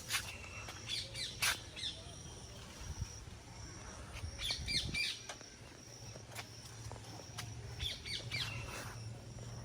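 Small birds chirping in short clusters of quick calls, about a second in, around the middle and again near the end, over a faint repeating high-pitched trill.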